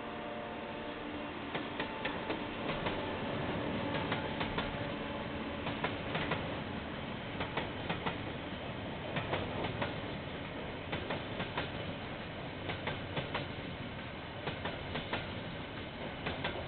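Container freight train rolling past, a steady rumble of wagons with wheels clicking over the rail joints in repeated small clusters.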